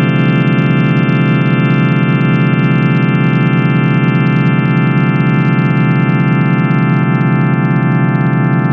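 Steady synthesized drone of layered sine tones at 111, 444 and 528 Hz, with many fixed overtones and a slight fast flutter in the lowest band; an image sonification that holds unchanged throughout.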